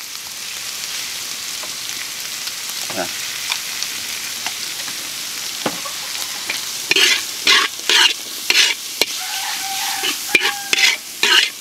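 Ground meat and diced carrots sizzling in a wide steel wok while a metal spatula stirs and turns them. From about seven seconds in, the spatula scrapes across the wok about twice a second.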